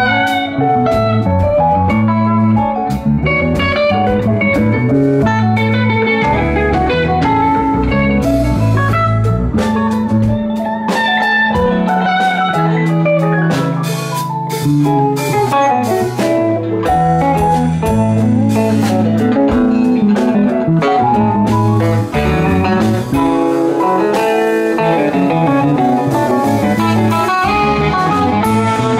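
Live rock band playing an instrumental stretch: electric guitar prominent over electric bass and a drum kit.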